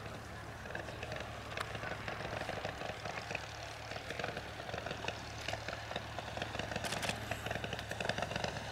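The English Electric Wren's 3 hp 398cc ABC motorcycle engine running in flight, a faint rapid crackling putter over a steady low hum, growing a little louder near the end as the aircraft passes.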